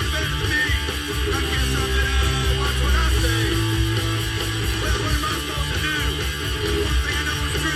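Recorded cow-punk rock song: strummed electric guitars over bass guitar, steady and loud.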